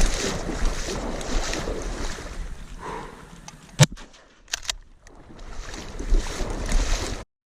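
Wind buffeting the microphone over water noise, with a sharp click nearly four seconds in and a few fainter clicks just after, while the noise dies down for a moment.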